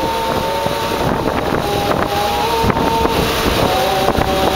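A few men's voices singing an Armenian church hymn together, holding long notes that step from one pitch to the next. Under them run a boat's motor and wind buffeting the microphone.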